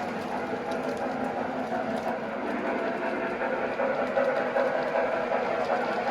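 O gauge model train running steadily on the layout: a continuous hum of its motor and wheels rolling on the track.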